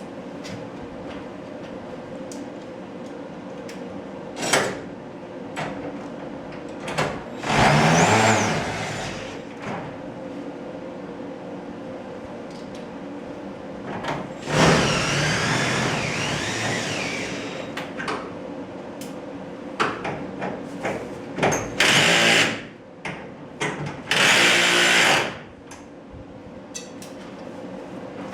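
Power drill driving screws into garage-door hardware in four runs of one to three seconds, its motor pitch rising and falling within each run. Short clicks and knocks of handled hardware come between the runs, over a steady low hum.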